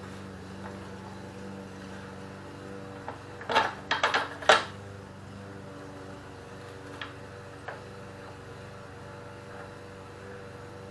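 A short cluster of sharp clicks and knocks about three and a half to four and a half seconds in, with a couple of faint single clicks later, from tools and parts being handled on a motorcycle under repair, over a steady hum.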